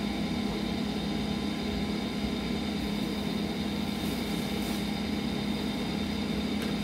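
A steady low machine hum fills the room, with faint rustling of plastic wrapping about four seconds in as hands dig through a cardboard box.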